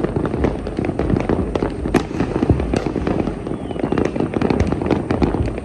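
Many fireworks and firecrackers going off at once: a dense, continuous crackle of overlapping pops and bangs over a low rumble, with no single burst standing out.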